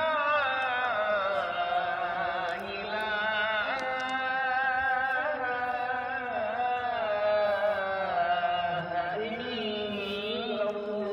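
A muezzin's call to prayer: one man's voice chanting long, held notes that bend and waver in ornate melismatic runs.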